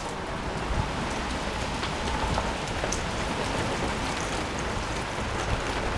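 Steady rain falling on wet pavement and puddles: an even hiss with scattered individual drop ticks.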